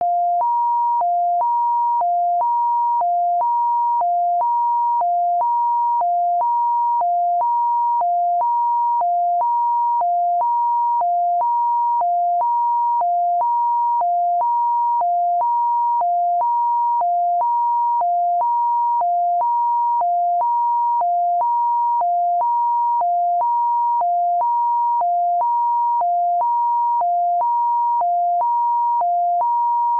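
Computer-generated two-tone ambulance siren: a pure high tone and a lower tone alternating evenly in a hi-lo pattern, about one high-low cycle a second, steady throughout.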